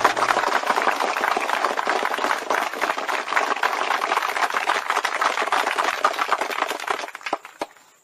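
Audience applause: many hands clapping in a dense, irregular stream that thins out about seven seconds in, ending with a few last claps.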